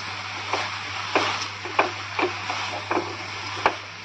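Wooden spatula stirring a thick mix of flattened rice, jaggery and grated coconut in a metal kadai. It scrapes and knocks against the pan about six times, at a steady pace.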